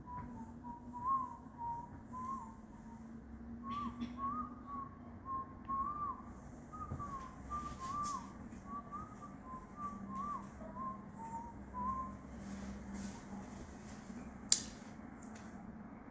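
A person whistling a tune of short gliding notes for about twelve seconds, then a single sharp click near the end.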